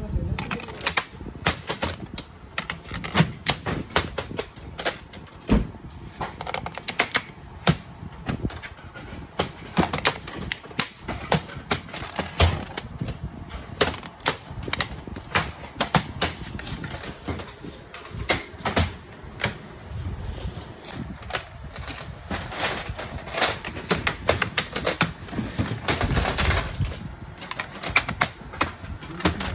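Rapid, irregular clicking and tapping of small hard objects, several clicks a second.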